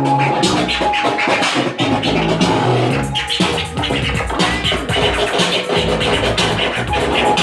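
A DJ scratching a vinyl record on a turntable over a beat with a bass line.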